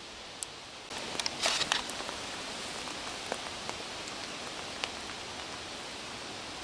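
Small wood fire burning in a stainless steel wood gas camping stove, just lit: a cluster of crackles and pops about a second in, then a steady hiss with an occasional pop.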